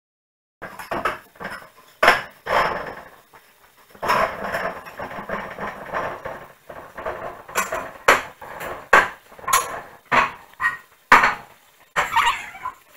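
Irregular knocks and clatters with sharp clicks, like household objects being handled, and a dog starting to whimper near the end.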